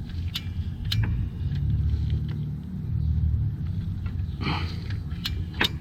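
A torque wrench being worked on a camshaft sprocket bolt: a few scattered sharp metallic clicks and a short rasp about four and a half seconds in, over a steady low rumble.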